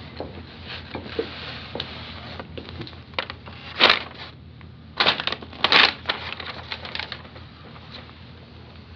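Paper rustling and being handled, in short crackly bursts: the loudest come about four seconds in and twice more between five and six seconds in, over a low steady room hum.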